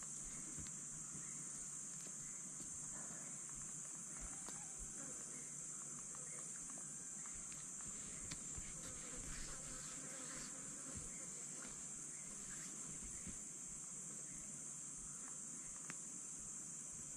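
Steady high-pitched insect chorus, with scattered small clicks and rustles in the middle.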